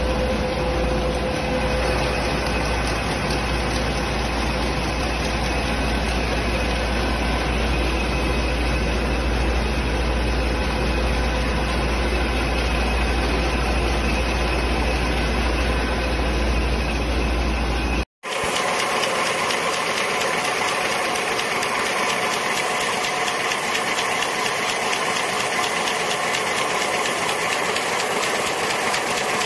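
Industrial paper die-cutting machine running with a steady, rapid mechanical clatter over a strong low hum. The sound cuts off abruptly about eighteen seconds in and gives way to a cone-forming machine running with a similar steady clatter and less hum.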